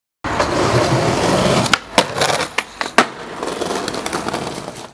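Skateboard wheels rolling over pavement, broken by four sharp clacks of the board, then quieter rolling that stops abruptly.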